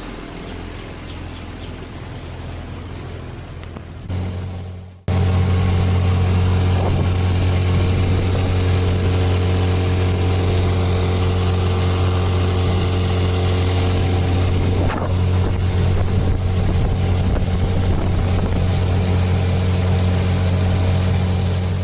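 Small fishing boat's outboard motor running at a steady, constant speed, heard from aboard. It is moderate for the first few seconds, then after a sudden break about five seconds in it is loud and steady.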